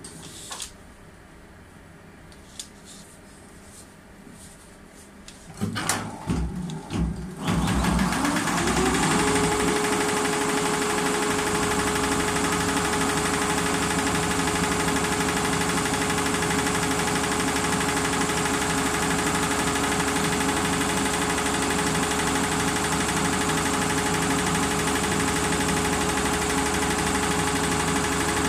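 FORTEVER multi-needle computerized embroidery machine. After a few quieter seconds and some knocks, its motor winds up in pitch about eight seconds in and settles into steady running with a constant hum.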